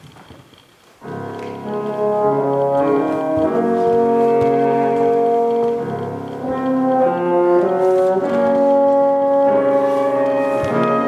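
Flute ensemble entering about a second in and playing slow, sustained chords in several parts, after a moment of quiet hall noise with a few small clicks.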